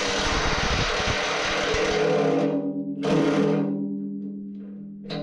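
A power tool running in two bursts, a long one and then a short one, as the bolts of the excavator bucket teeth are driven in. Background music plays throughout.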